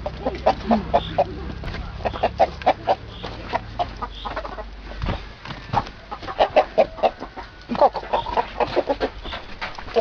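Domestic chickens clucking in quick runs of short clucks, with a few pauses between the runs.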